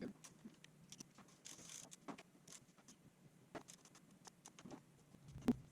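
Faint, irregular clicks and taps of a socket wrench and hand tools handled against the motorcycle's metal fork clamps, with a brief hiss about a second and a half in and a sharper knock near the end.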